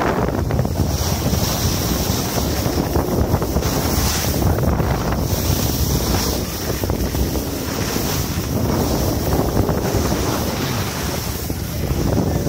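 Air rushing over the microphone of a handheld camera carried by someone skiing down the slope: a steady, loud wind noise that wavers in strength.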